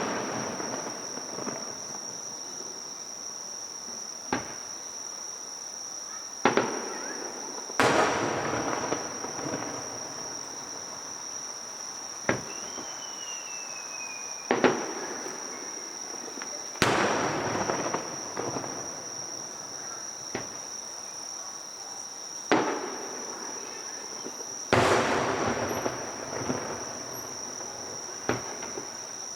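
Aerial fireworks going off: about a dozen sharp bangs a few seconds apart, several trailing off into a couple of seconds of crackle. A steady high-pitched insect drone runs underneath.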